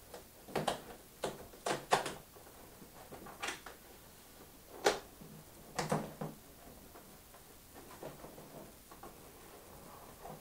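A large paper sheet being handled and taped down: a string of short, sharp crackles and rustles at irregular intervals, the sharpest about two seconds in and again near five seconds.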